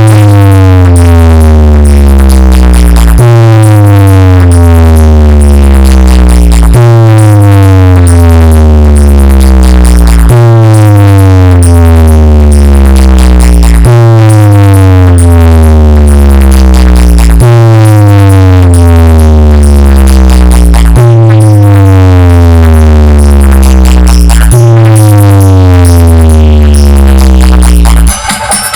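DJ sound system playing an electronic bass test track at full volume: a heavy, deep bass note with a falling synth sweep above it, repeated about every three and a half seconds, eight times in all. This is a sound check pushing the speakers' bass.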